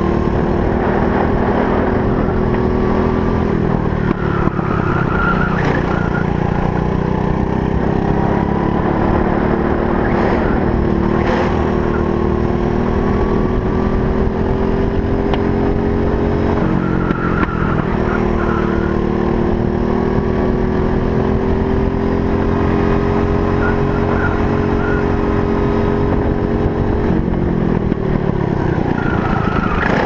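Briggs & Stratton LO206 four-stroke single-cylinder kart engine at racing speed, its pitch climbing slowly along the straights and falling sharply off the throttle for corners three times, a few seconds in, about halfway and near the end.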